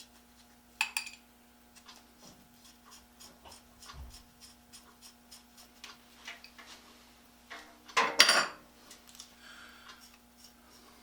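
Metal clinking as the parts of an antique adjustable wrench are handled: a short clatter about a second in and a louder, longer clatter about eight seconds in, with lighter taps and rubs between. A clock ticks faintly and steadily throughout.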